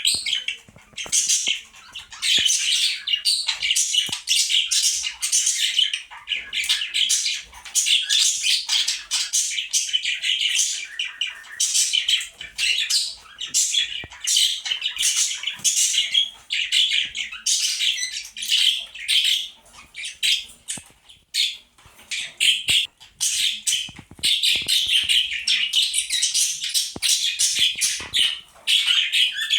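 Budgerigars (Australian parakeets) chattering and chirping continuously, many overlapping calls.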